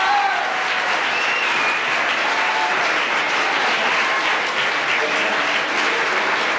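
Audience applauding steadily, with a few voices among the clapping.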